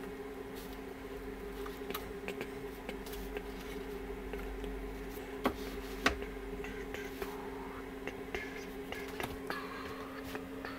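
Steady low hum in a small room with scattered light clicks and knocks, and two sharper clicks about halfway through.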